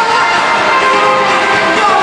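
Live pop song performance, loud and steady, with a female singer's voice over amplified music.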